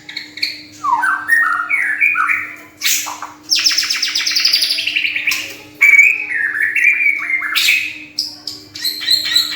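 Caged bird singing: a varied string of chirps and warbles, with a long rapid trill falling in pitch a few seconds in. There are a couple of loud sharp clicks, and a faint steady hum underneath.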